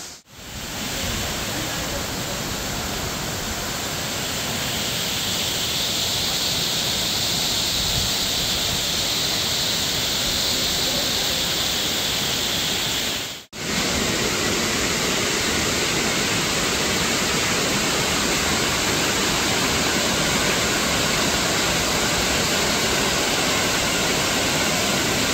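Steady, dense rush of a waterfall close by. It drops out for an instant about halfway through, then carries on unchanged.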